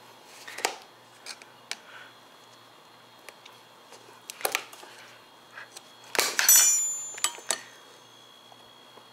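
Metal tyre levers clinking and knocking against the rim of a 10-inch electric scooter hub-motor wheel as a tube tyre is forced onto it. Scattered sharp clicks, with the loudest clatter and a brief metallic ring about two-thirds of the way in.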